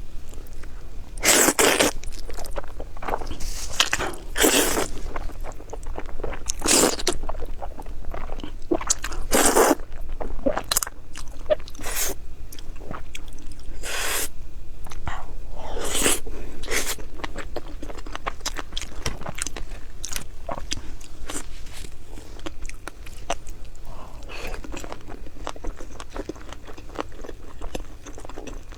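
A person biting and chewing crisp food: loud, sharp crunches at irregular intervals, with quieter chewing between them.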